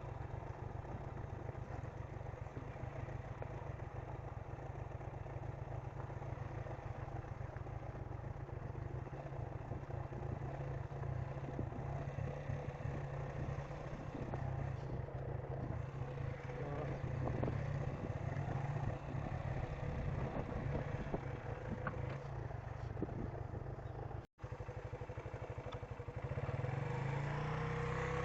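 Suzuki GN125H's single-cylinder four-stroke engine running while the motorcycle is ridden, a steady low drone with wind. Its pitch rises and falls near the end.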